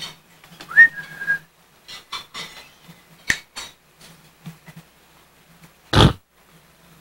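A short, high, whistle-like squeak about a second in, a sharp click around the middle, and a loud dull thump near the end, among soft scattered rustles and knocks.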